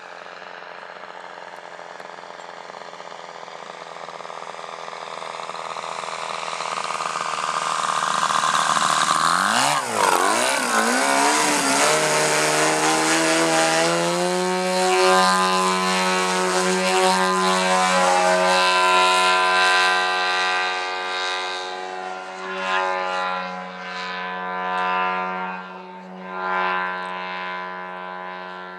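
Giant-scale RC Yak 54's DLE-222 two-stroke gasoline engine and propeller in flight. It grows louder as the plane closes in, and its pitch dips sharply and comes back up about ten seconds in. It then holds a steady high-power note while the plane hangs nose-up, before swelling and falling away in several waves near the end.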